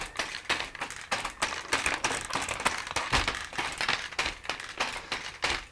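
Rapid, irregular clicking and ticking from a robot dog's leg joints (brushless motors with two-stage belt reduction, running in current control) as the compliant legs settle and adjust against the ground. A dull knock comes about halfway through.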